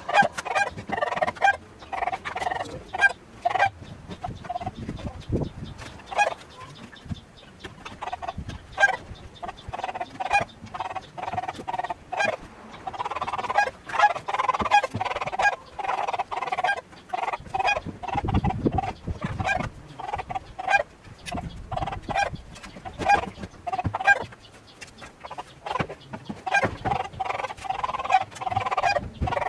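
Chickens clucking over and over, with frequent short knocks and scrapes of litter being cleared out of the coop by hand and shovel.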